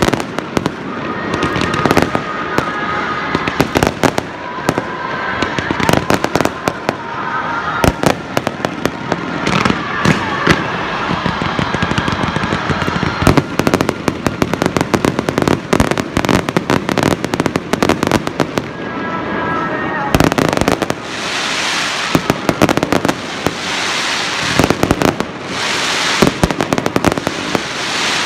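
Fireworks display: a rapid, continuous barrage of bangs from bursting aerial shells. From about twenty seconds in, repeated washes of hissing crackle join the bangs.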